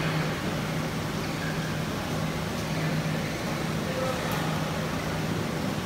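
Steady low hum and room noise of an indoor badminton hall between rallies, with faint distant voices.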